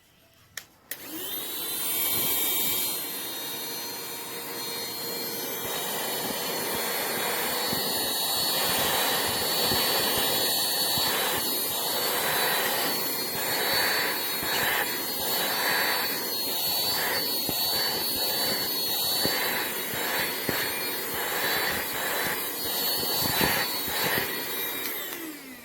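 Cordless handheld vacuum (CODN LT117) clicked on, its motor spinning up to a steady high whine with rushing air. The airflow noise wavers repeatedly in the middle, and the motor spins down and stops near the end.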